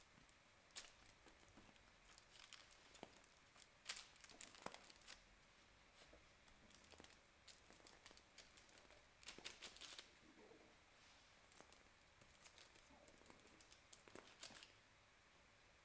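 Faint crinkling and scattered small crackles of a piping bag being squeezed to pipe soft biscuit dough onto baking parchment, in a few short clusters.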